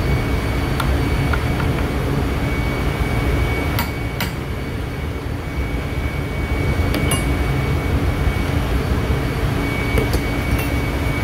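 Steady, loud drone of heavy machinery running, with a constant high whine on top. A few short metallic clicks sound over it as a hand bearing puller is worked on the shaft of an electric motor's rotor.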